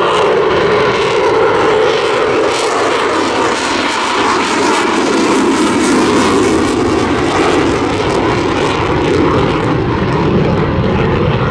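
Eurofighter Typhoon's twin EJ200 turbofan engines running steadily and loudly during a slow, high-angle-of-attack pass, with a deeper rumble building near the end.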